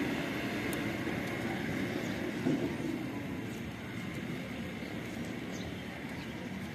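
Steady low rumble of street traffic, slowly fading, with a few faint light clicks.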